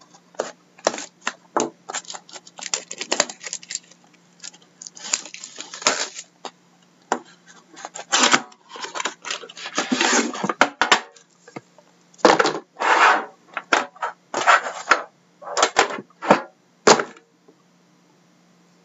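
Plastic shrink-wrap being slit and torn off a cardboard trading-card box, crinkling and crackling in quick irregular bursts that stop shortly before the end.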